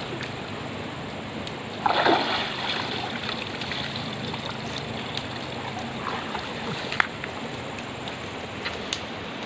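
Shallow river water splashing and sloshing around people wading out and climbing the bank, with a louder splash about two seconds in and a sharp click near seven seconds.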